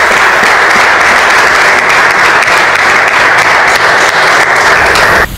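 A small group of people clapping their hands, steady and loud, which cuts off suddenly near the end.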